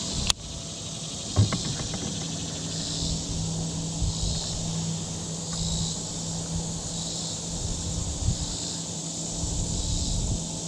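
Insects calling in a steady high buzz that swells in regular pulses about every second and a quarter, over a steady low hum. A sharp click comes just after the start and a knock about a second and a half in.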